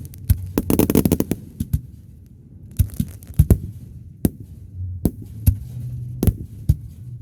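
Fireworks going off: a string of sharp bangs, with a rapid crackling run about a second in and another cluster of bangs around three seconds.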